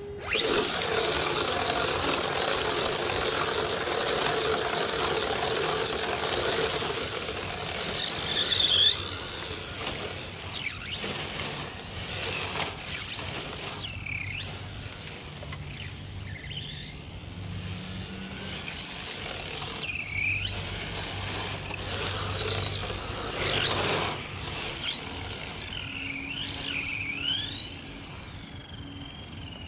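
Electric RC car running on pavement: a steady motor whine and tyre noise, loudest for the first several seconds, then a string of short, high tyre squeals as it slides through turns.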